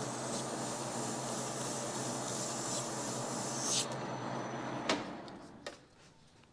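A 400-grit abrasive strip rubbing on a Suzuki RM125 crankshaft half as it spins in a metal lathe, polishing the metal, over a steady hum from the lathe motor. The lathe is switched off with a click about five seconds in and runs down.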